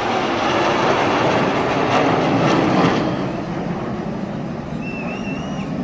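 Jet roar from a formation of military jets passing overhead, building to a peak about halfway through and then fading. A short wavering whistle near the end.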